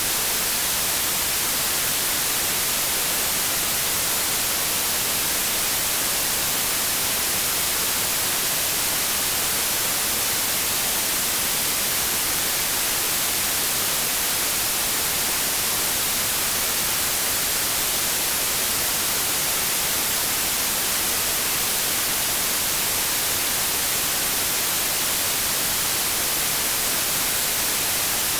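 Steady hiss of an analogue TV tuned to a dead channel: even static with no tones or breaks, strongest in the highs.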